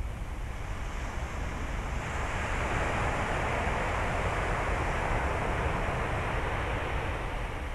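Surf on a beach: a wave breaking swells about two seconds in and washes on for several seconds before fading, over a steady low rumble of wind on the microphone.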